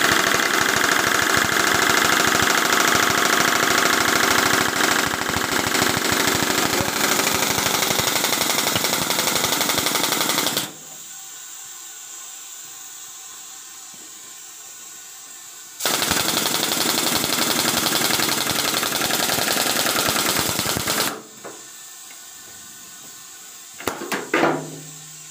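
Pneumatic injector air hammer firing in rapid repeated blows, working a seized diesel injector loose: one long burst of about eleven seconds, then a steady quieter hiss, then a second burst of about five seconds, and a brief short sputter near the end.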